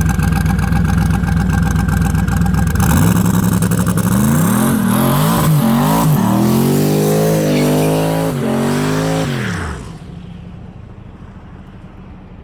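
Twin-turbo 5.3 L V8 in a Chevy S10 running, steady for a few seconds, then revved hard several times with its pitch rising and falling. About ten seconds in it drops away to a much quieter steady running sound.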